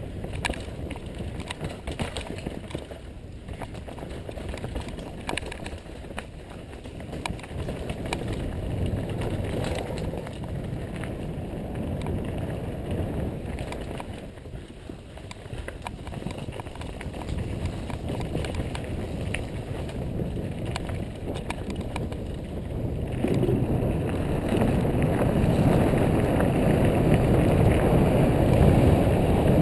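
Mountain bike descending a dirt trail: continuous tyre and rolling noise with frequent small clicks and rattles from the bike. About three-quarters of the way through it steps up into a louder, steady low rush.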